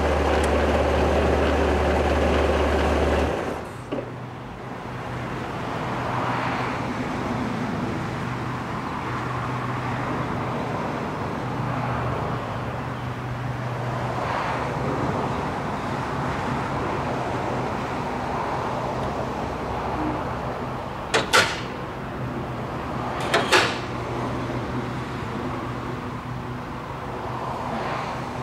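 Bobcat 763 skid steer's diesel engine running. About four seconds in it drops to a lower, steady idle. Near the end there are two sharp metal clanks about two seconds apart as the backhoe attachment is hooked up.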